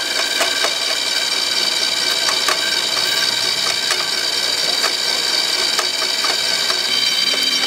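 Small electric motors and gear drives of radio-controlled model vehicles whining steadily, several high tones at once, with a few scattered clicks.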